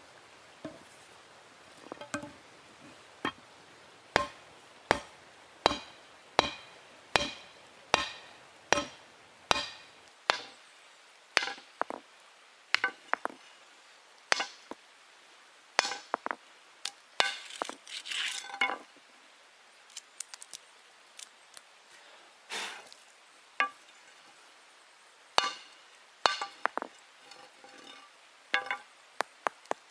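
A hand-held stone hammers a red-hot steel bar on a boulder anvil. A run of sharp blows comes about one every three-quarters of a second, then the blows turn irregular and come in small clusters. Many carry a short metallic ring.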